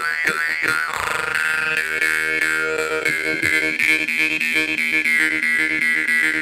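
Jaw harp played with a twanging drone, pulsed in an even rhythm from the back of the mouth and throat, with a bright overtone melody shifting in pitch over the drone.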